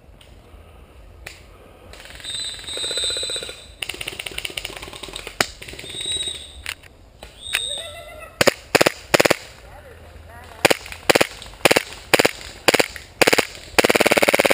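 Airsoft gun firing in the woods: a string of single shots about two a second, then a long full-auto burst near the end.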